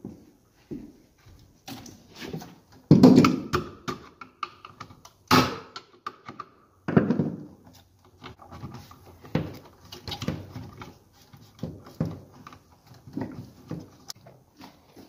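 Irregular knocks and thuds of hands-on work fitting electrical gang boxes, ringing briefly in a small room, the loudest about three, five and seven seconds in.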